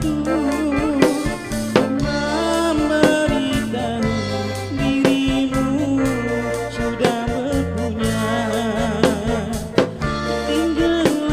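Live band playing an instrumental break in a Malay pop song: electronic keyboard and electric guitars over bass and drums with a steady beat.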